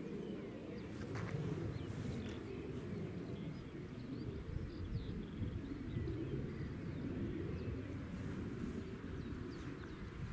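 Outdoor ambience: a low, uneven noise throughout, with faint bird chirps.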